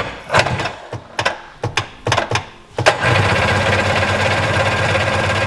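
Two-stroke Sea-Doo twin engine cranking over on its electric starter for a compression test, throttle held wide open and a compression tester in the front cylinder, so it turns but does not fire. A few clicks come first, and the steady, fast, rhythmic cranking starts about three seconds in.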